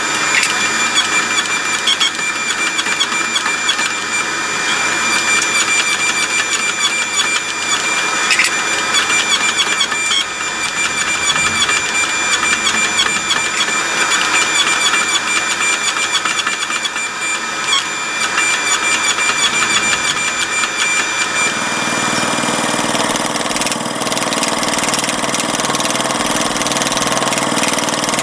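Hydraulic forging press running steadily while its flat dies squeeze a glowing pattern-welded steel billet, with a steady machine whine. About 22 seconds in it gives way to a lower, deeper machine hum.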